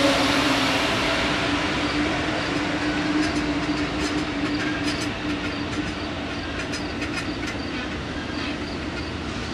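Amtrak California Zephyr passenger train rolling along the track just after its horn stops. A steady low tone fades out about five seconds in over a slowly fading rumble of the train. From about three seconds in there are light, high squeaks and ticks from the wheels on the rails.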